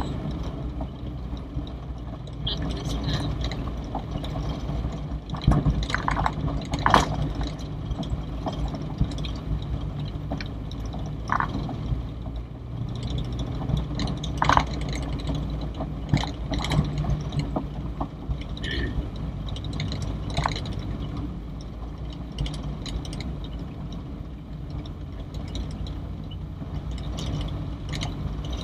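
A 44-year-old Toyota Corolla DX driving slowly along a rough dirt lane, heard from inside the cabin: a steady low engine hum with scattered knocks and rattles from the car over the bumps.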